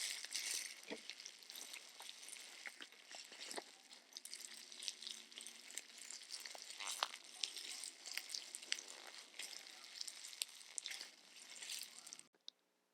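Close-miked ASMR handling sounds: dense crackling with many small sharp clicks, cutting off abruptly near the end.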